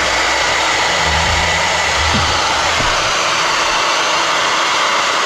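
Handheld hair dryer running steadily: a constant rush of air with a faint high whine.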